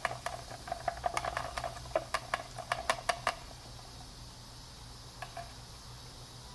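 A thin stick stirring mixed epoxy resin and hardener in a plastic cup, ticking and scraping against the cup's sides about four or five times a second, stopping about three seconds in. A steady low hum runs underneath.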